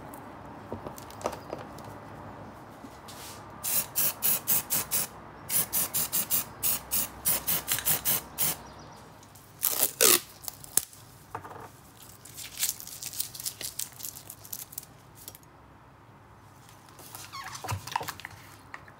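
Masking tape being pulled off its roll with a loud ripping sound that falls in pitch, about halfway through, then more crinkly tape handling near the end. Before it comes a steady run of sharp rhythmic strokes, about two or three a second, for several seconds.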